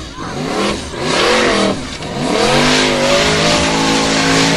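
Formula Offroad buggy's engine revving hard as it climbs a steep dirt slope: two short surges, then a long rev held high from about halfway. Under it, the hiss of paddle tyres spinning and throwing dirt.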